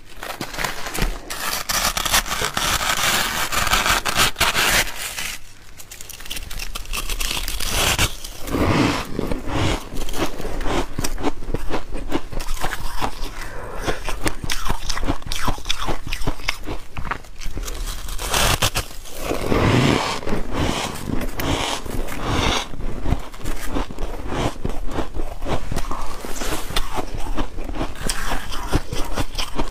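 Close-miked scraping and crunching of soft foam ice: a spoon scraping through a mound of fluffy ice for the first few seconds, then dense crackling crunches as the ice is broken apart and bitten.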